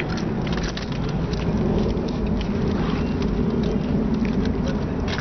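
Crackly crunching and rustling of Xxtra Flamin' Hot Cheetos and their foil bags, many small clicks over a steady low rumble.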